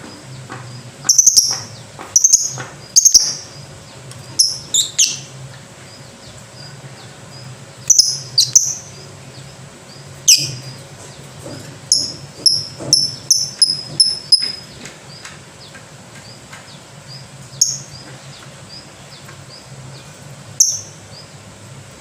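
Lovebird calling: sharp, high chirps in short clusters of two or three, then a quick run of about eight chirps stepping slightly down in pitch, and a few single chirps near the end.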